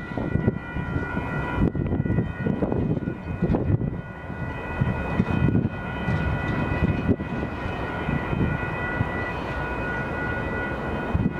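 Amtrak Superliner passenger cars rolling past on steel wheels, with a dense rumble and frequent clanks over the rail joints. A grade-crossing warning bell rings steadily throughout.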